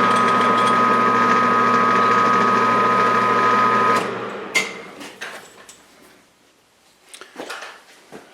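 Metal lathe running steadily with a constant gear whine. It is switched off about four seconds in and runs down, followed by a few light clicks and knocks.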